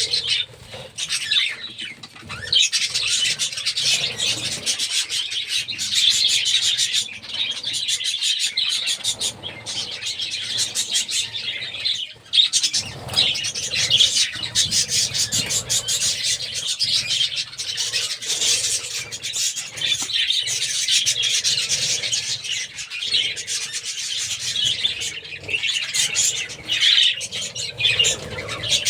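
A colony of budgerigars chattering and chirping continuously, many birds at once, with wings flapping now and then.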